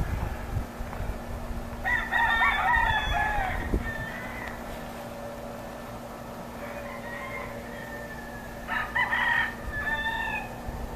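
A rooster crowing twice, once about two seconds in and again near the end, with fainter calls between, over a steady low hum.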